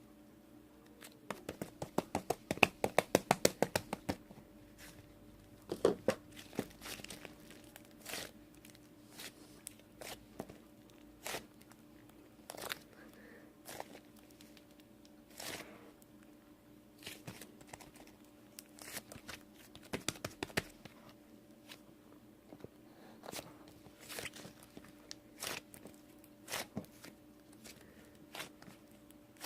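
Irregular sharp clicks and taps with some crinkling, from small objects being handled, coming in a rapid flurry in the first few seconds and then scattered, over a faint steady hum.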